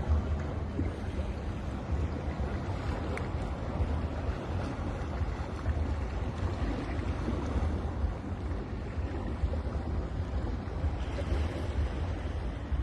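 Sea waves washing onto a beach: a steady rushing surf with a low rumble of wind buffeting the microphone.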